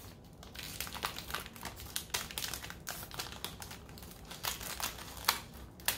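Scissors cutting the top off the plastic wrapper of a Popin' Cookin' kit tray: irregular snips with the thin plastic crinkling and rustling as it is handled.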